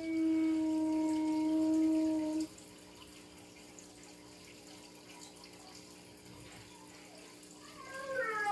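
A steady, held tone with overtones, part of the sounds played to the dog. It stops abruptly about two and a half seconds in. Near the end a wavering sound that rises and falls in pitch begins.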